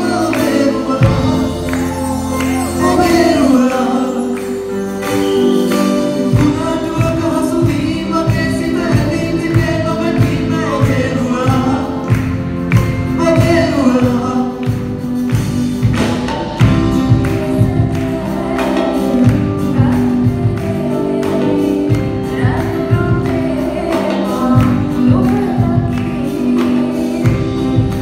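Live band, with electric guitars and keyboard, backing a group of singers singing together. A steady beat comes in about six seconds in.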